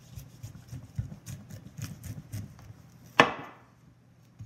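Chef's knife slicing through a dry-aged bone-in ribeye roast, with small scrapes and ticks of the blade against the meat and wooden butcher block, then one sharp knock about three seconds in that rings briefly as it fades.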